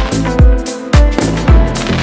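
Electronic dance music with a steady kick drum thumping about twice a second over sustained synth tones.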